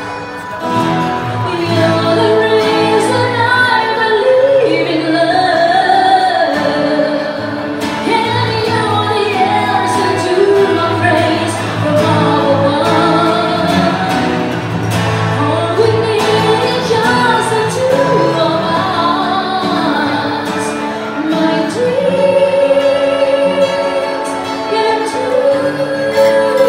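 A woman singing a song through a microphone, accompanied by a man playing an acoustic guitar.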